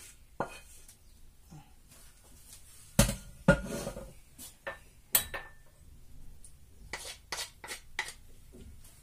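Kitchenware clatter as a wooden spoon scrapes and knocks the mixture out of a stainless steel frying pan onto a china plate. There are two loud knocks about three seconds in, a ringing clink a little after five seconds, and a run of lighter taps near the end.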